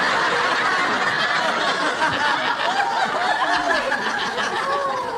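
Studio audience laughing: a long, steady wave of laughter from a large crowd that eases off a little near the end.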